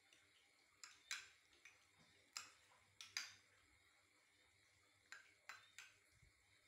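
Faint, sharp clinks of a metal spoon against a ceramic bowl, about eight of them in small scattered groups.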